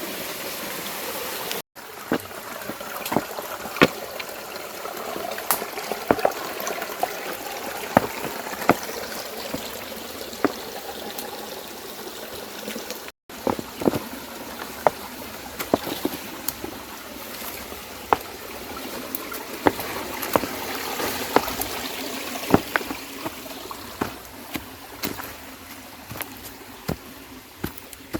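Water of a small stream or waterfall trickling and splashing over rocks, with frequent sharp taps and knocks through it. The sound drops out briefly twice.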